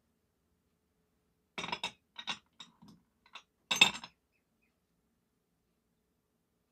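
Glass cruets and a metal chalice clinking together as the priest performs the ablutions: a few sharp chinks about a second and a half in, some lighter taps, then the loudest clink near four seconds.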